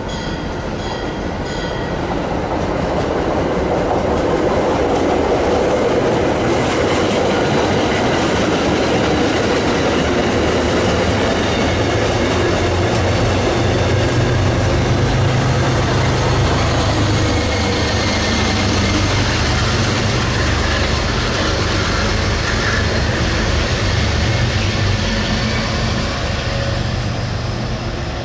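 MBTA commuter rail train of bilevel passenger coaches passing, its wheels rumbling and clacking over the rails; the noise builds over the first few seconds, holds steady, and fades near the end. A low steady drone, the diesel locomotive, joins in the second half.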